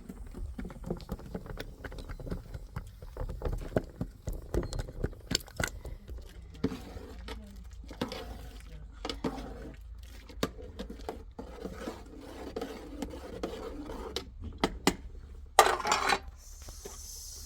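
Dishes and utensils clinking, knocking and scraping in irregular short clicks, with one louder clatter near the end.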